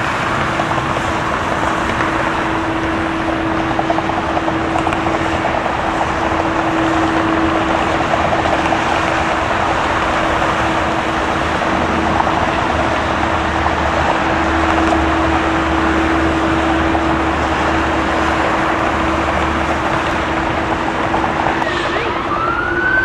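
Steady jet engine noise from a Boeing 787 Dreamliner moving along the runway, with one steady tone held through it. Near the end a siren starts, rising in pitch.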